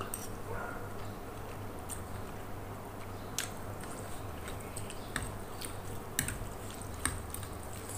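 Close-up mukbang eating sounds: a person slurping and chewing a mouthful of instant soto noodles with raw bean sprouts, with a few sharp clicks from about the middle on, over a low steady hum.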